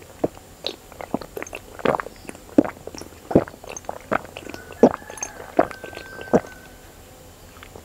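A person gulping milk from a glass mug at a close microphone: a steady run of separate swallows, about one every half to three-quarters of a second.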